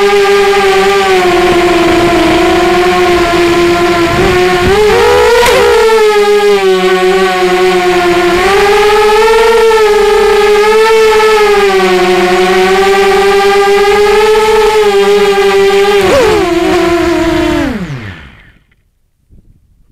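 Strider Flex 250 FPV quadcopter's brushless motors and propellers whining loudly, the pitch rising and falling with the throttle. About sixteen seconds in the pitch falls and the motors wind down to a stop as the quad settles in the grass.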